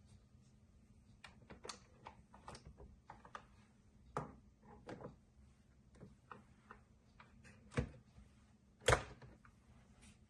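Irregular small clicks and knocks of something being handled, with two louder knocks near the end, over a faint steady low hum.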